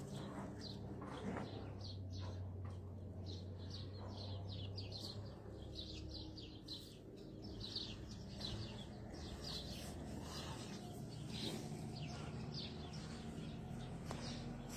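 Small birds chirping, short high chirps repeating several times a second, over a low background rumble.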